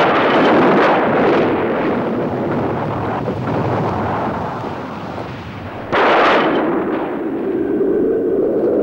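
Explosion sound effects: a sudden bang at the start and another about six seconds in, each trailing off into a long rumble.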